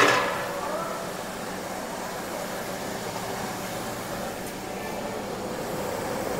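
Steady hiss of LPG gas burners running under the cooking pots, with faint voices in the background.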